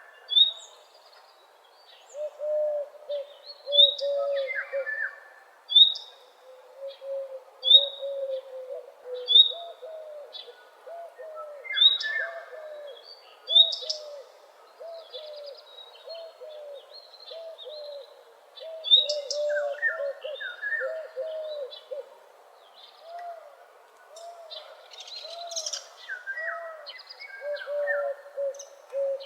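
A chorus of several birds singing. One low call repeats as a steady run of short notes, a sharp high chirp sounds about every two seconds, and other calls come in between.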